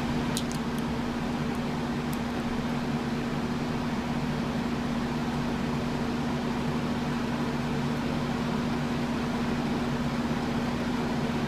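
Steady machine hum with a hiss, like a running fan, holding one low tone with no change in level.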